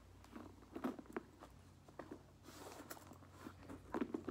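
Faint rustling and small clicks of things being handled inside a handbag, scattered irregularly.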